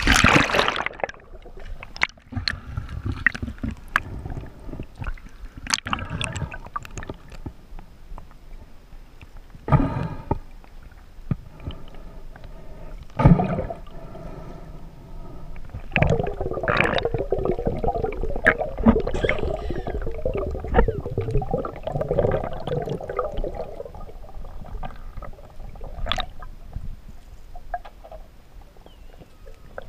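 Splash as the camera is plunged into the water, then muffled underwater sound: low rumble, scattered knocks and clicks, and a wavering hum for several seconds past the middle.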